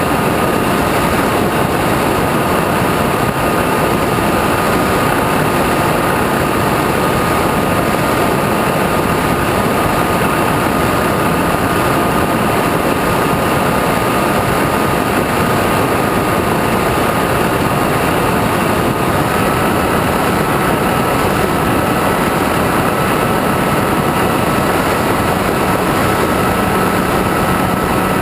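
Electric motor and propeller of an E-flite Apprentice RC trainer plane in flight, heard from the onboard camera: a steady whine at constant pitch over a heavy rush of wind, the whine stepping up slightly past the middle as the throttle changes.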